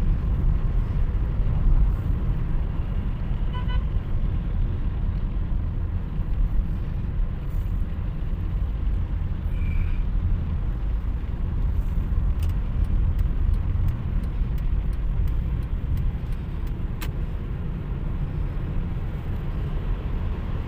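Steady low rumble of a car driving in slow city traffic, heard from inside the car. A brief pitched beep comes about four seconds in, and a run of faint clicks comes in the second half.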